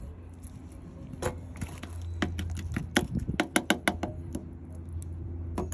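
Metal spoon clinking quickly against a ceramic bowl as shrimp-paste dipping sauce is beaten, about two seconds in and lasting a couple of seconds, over a steady low hum.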